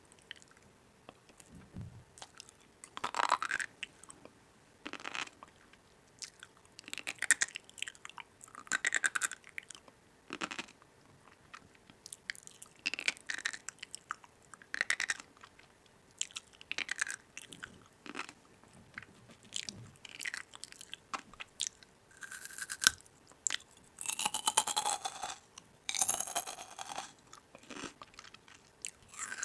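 Someone chewing and biting crunchy food in irregular crisp bursts, with longer, louder crunches near the end.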